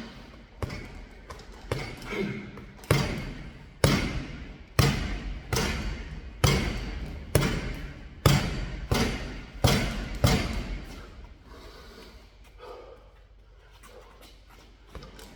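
Punches landing one after another at a steady pace, a little under one a second: about a dozen sharp thuds. They stop about eleven seconds in, and only faint rustling follows.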